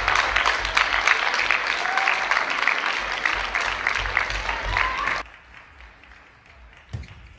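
Spectators applauding loudly with rapid, dense clapping and some cheering voices, at the end of a game in an indoor table tennis hall. The applause cuts off suddenly about five seconds in, leaving a much quieter hall with a single thump near the end.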